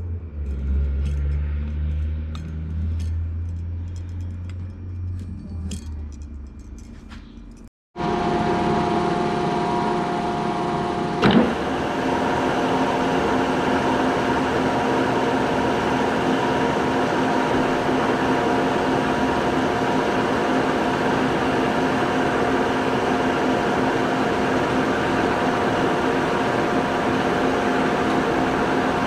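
Background music with light clicks, then, after an abrupt cut about eight seconds in, a milling machine running steadily with its cutter spinning over an aluminium block. A single sharp knock comes about eleven seconds in.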